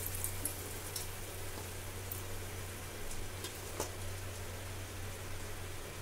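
Batter-coated eggplant slices (beguni) deep-frying in hot oil in a kadai: a steady sizzle with scattered crackles and pops, over a low steady hum.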